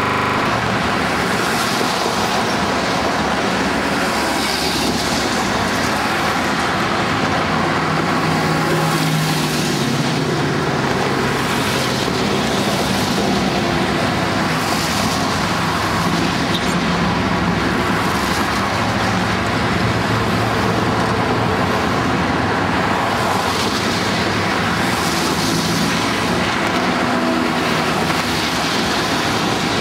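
Heavy multi-lane motorway traffic: a steady wash of tyre and engine noise, with vehicles swelling past and fading every couple of seconds and a low engine hum from the heavier trucks.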